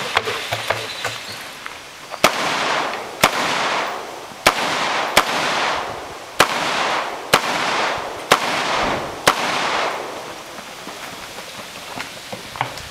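Rifle fired in quick succession: eight sharp shots at roughly one a second, starting about two seconds in, each followed by a short echo. A few faint ticks come before the first shot.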